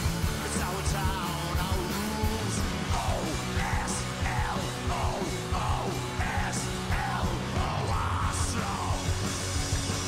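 Rock band playing live: a driving punk-rock beat of drums with cymbal crashes, electric guitars and bass, with shouted vocals over it.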